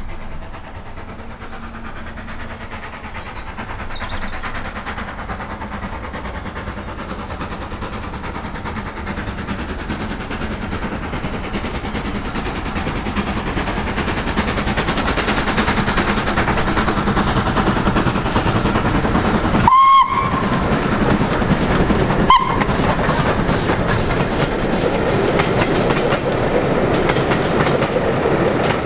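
A steam-hauled train drawing near, its running noise growing steadily louder, with two short whistle toots a couple of seconds apart about two-thirds of the way through.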